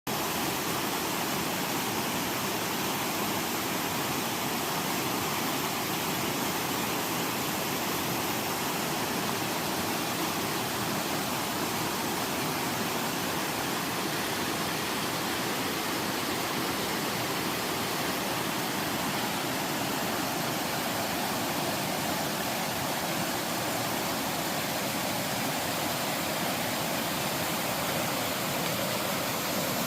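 Water pouring down a five-tiered sliding waterfall over rock: a steady, even rush of falling water.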